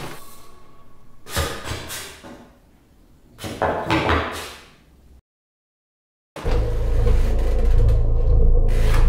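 Horror-film sound design: two swelling, noisy hits that fade away, then a second or so of dead silence, then a loud, steady low rumbling drone with a hum in it.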